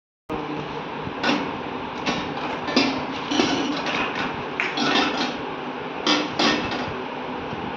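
Irregular knocks and clatter of hard objects being handled, a few sharp hits a second or so apart, over a steady background hiss.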